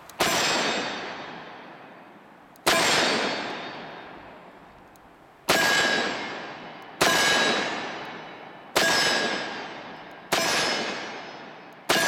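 Seven single shots from a Taurus 627 Tracker, a seven-shot .357 Magnum revolver with a 4-inch ported barrel, fired one at a time about one and a half to three seconds apart. Each shot is followed by a ringing echo that dies away over a second or so.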